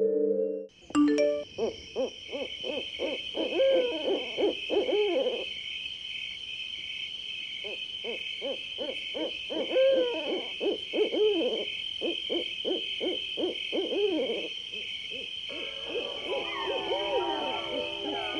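Owl hooting in two quick series of repeated calls, over a steady high-pitched drone.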